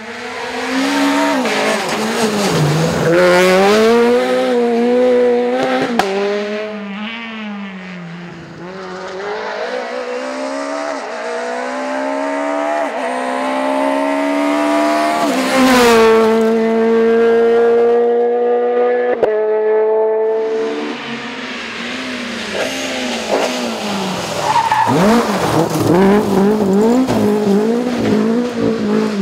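Rally car engines at full race revs, the pitch climbing through the gears and dropping sharply on lift-off and braking, over and over, with a couple of sharp cracks.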